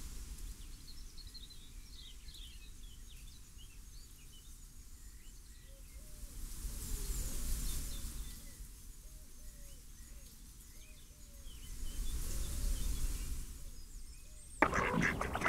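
Outdoor ambience: many small birds chirping and calling over a low rumble and a hiss that swells and fades about every five seconds. Near the end comes a sudden loud clatter lasting about a second.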